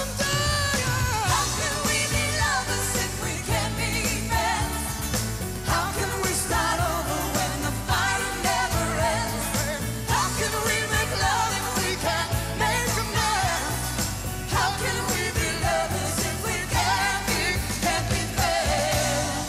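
A band playing pop music live, led by a male singer singing with strong vibrato, with female backing vocals and tambourines shaking along.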